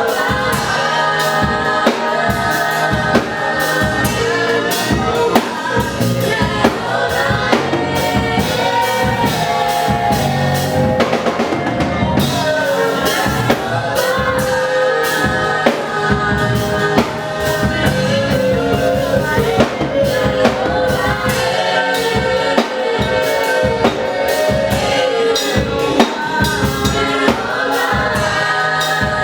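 Gospel praise music: singing with choir-style vocals over a full drum kit beat.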